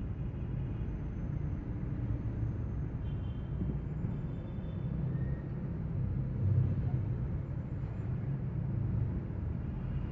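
Steady low rumble of car engine and traffic noise, heard from inside a car's cabin as it creeps along in slow traffic.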